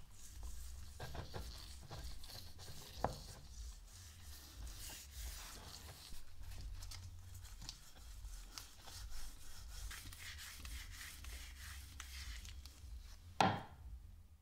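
A cloth rag wiping linseed oil varnish into a new ash hammer handle, with a rustle of rubbing strokes and small scattered clicks against the wood. A single sharper knock comes near the end.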